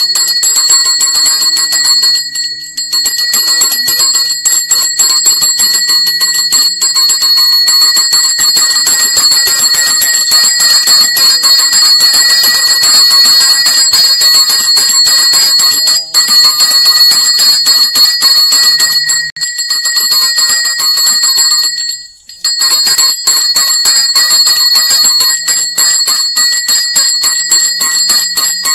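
Temple bell rung rapidly and without letup, its clear ringing tones holding steady, with a few brief pauses.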